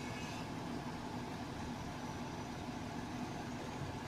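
Truck-mounted mobile crane's diesel engine running steadily as the crane hoists a bundle of scaffolding tubes.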